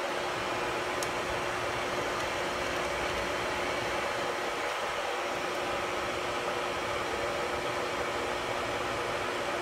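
Older 7.5-horsepower engine lathe running steadily at about 450 RPM, its spindle and chuck spinning a large aluminum workpiece: an even mechanical hum with a steady tone over a hiss.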